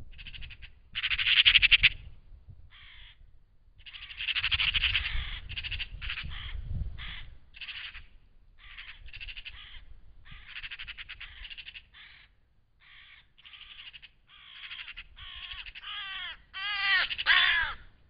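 Eurasian magpies giving harsh, rattling chatter calls in repeated bursts, the scolding alarm chatter of the species. The calls are loudest about a second in and again near the end.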